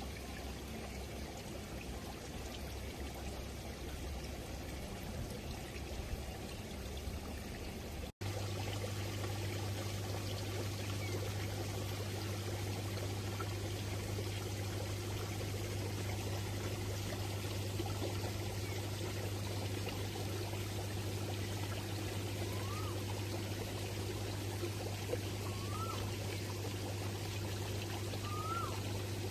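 Water pouring and trickling steadily. After a brief dropout about eight seconds in, a steady low hum runs under it, and a few faint short rising chirps come near the end.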